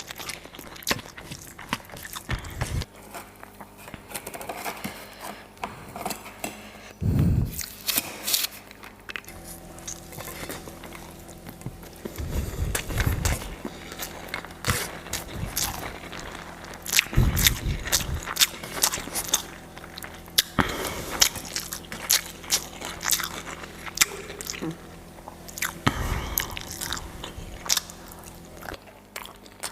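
Close-miked eating: crisp crunching bites of papad mixed with chewing of rice and curry. A few low thumps sound along the way, and a faint steady hum comes in about a third of the way through.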